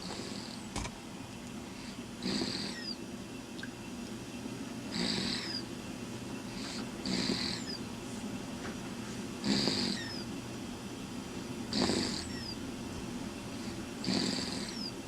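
Snoring: six snores at a slow, even rhythm, one about every two and a half seconds.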